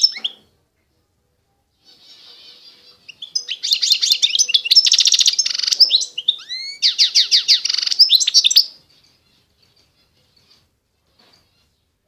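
A finch singing: it starts faintly about two seconds in, then runs a loud, fast song of rapid trilled phrases with a few sweeping notes in the middle. The song stops about nine seconds in.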